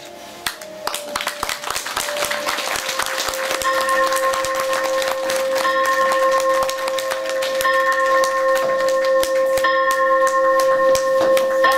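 Audience clapping, growing louder. Music with long held notes comes in about three and a half seconds in and plays under the clapping.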